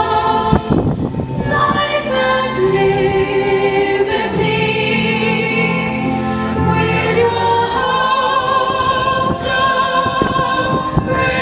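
A choir singing slow, long held notes.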